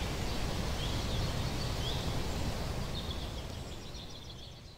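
Outdoor ambience: small birds chirping, with a rapid trill in the second half, over a steady low rumbling noise, the whole fading out toward the end.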